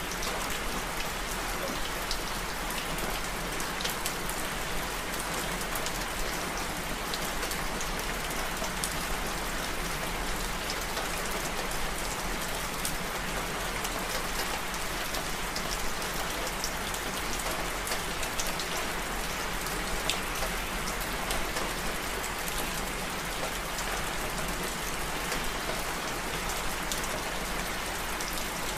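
Steady rain: an even hiss of falling rain, dotted with many small, sharp drop ticks, over a steady low rumble.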